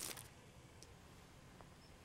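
A metal cartridge set down upright on a hard surface with one short light tap, then near silence with a couple of faint ticks.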